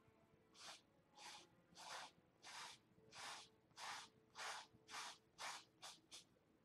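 Paintbrush scrubbing on canvas: about a dozen short scratchy strokes, roughly two a second and quickening near the end, over a faint steady hum.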